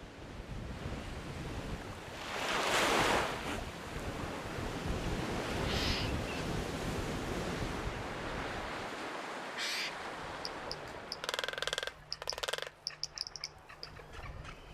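Surf washing on a shore, with a louder surge of water about two to three seconds in. In the last few seconds come short high bird chirps and a couple of harsher calls.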